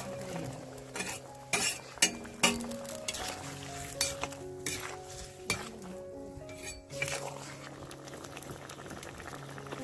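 Steel spatula clinking and scraping against a steel plate and the kadai as fried egg pakoras are slid into simmering curry gravy, which bubbles and sizzles. There are several sharp clinks in the first half, then mostly the bubbling.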